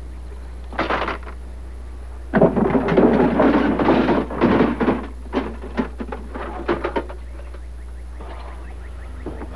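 Luggage and gear being shifted and pulled out of a car trunk: a brief knock about a second in, then a couple of seconds of loud rummaging and clattering, then scattered short knocks. A steady low hum runs underneath.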